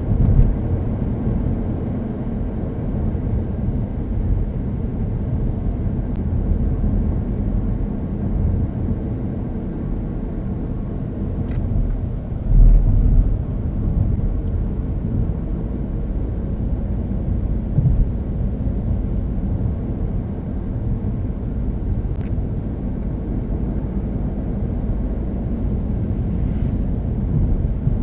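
2012 Chevrolet Cruze with the 1.4-litre turbocharged Ecotec engine on the move: steady low engine and road rumble, with one louder low thump about halfway through.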